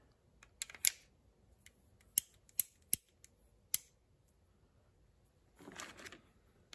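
Sharp metal clicks and taps from a Schofield revolver's cylinder as a resized cartridge case is fitted into a chamber. There are about six separate clicks over the first four seconds, then a soft handling rustle around six seconds in.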